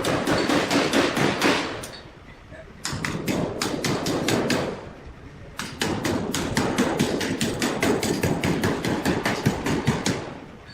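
Hammering on metal, fast runs of several strikes a second in spells of a few seconds, with short pauses between spells.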